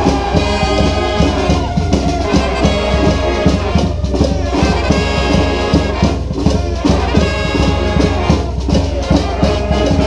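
Street brass band playing a New Orleans-style brass-band tune: sousaphone, trumpets and saxophones over marching snare and bass drums keeping a steady beat.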